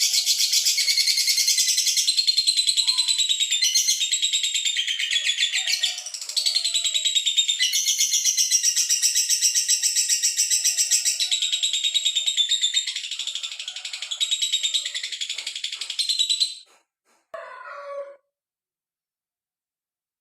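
Male lovebird giving one long, unbroken, rapid high-pitched chattering call for about sixteen seconds, then stopping abruptly. A short, lower sound follows about a second later.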